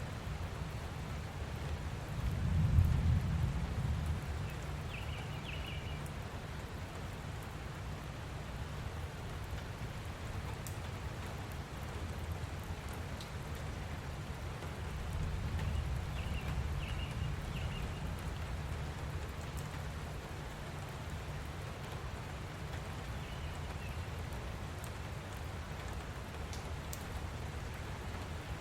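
Light rain falling steadily with occasional drips. A low rumble swells twice, about two seconds in and again around fifteen seconds. A bird chirps faintly a few times in the background.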